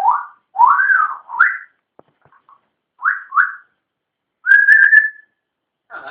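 African grey parrot whistling: a string of short rising whistles, one that rises and falls, two quick rising notes about three seconds in, and a longer level whistle with a buzzy edge about four and a half seconds in.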